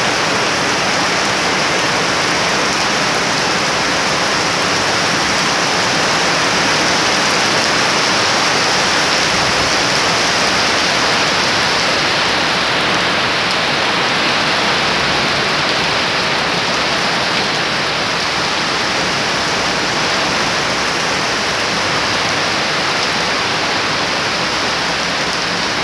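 Heavy rain pouring steadily: a dense, even hiss.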